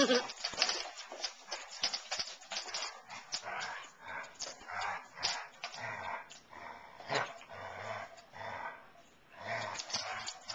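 Two basset hounds, an adult and a puppy, play-fighting: repeated short dog vocalizations over many quick clicks and scrabbles of claws on a hardwood floor.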